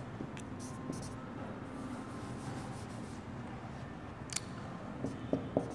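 Faint room tone with the light taps and strokes of a marker on a whiteboard: a few soft scratches early on, one sharper click about four seconds in, and a few small knocks near the end.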